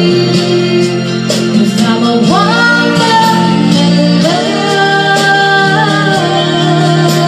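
A woman singing into a handheld microphone over instrumental backing music, with two long held notes that each slide up into pitch, about two and four seconds in.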